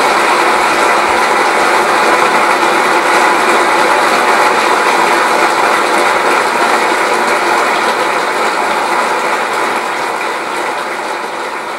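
Concert-hall audience applauding: dense, steady clapping that dies away near the end.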